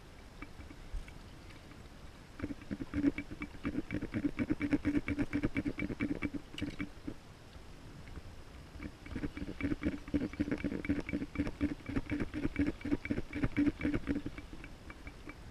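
Fly reel's click drag ratcheting as line is wound in by hand: two runs of rapid, even clicking a few seconds long, with a short pause between.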